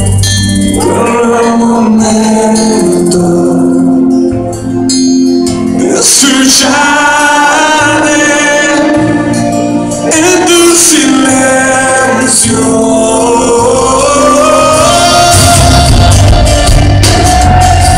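Music: a Christian pop ballad sung in Spanish, with held, sliding vocal lines over band accompaniment and a steady bass.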